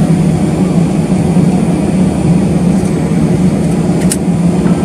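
Steady drone of an airliner's jet engines, with one short click about four seconds in.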